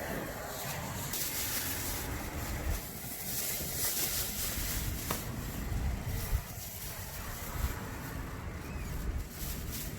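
Outdoor ambient noise: an uneven low rumble with hiss, and a single faint click about five seconds in.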